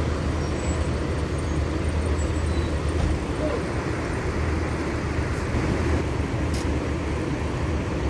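Steady low drone of idling bus engines and road traffic, with faint voices in the background.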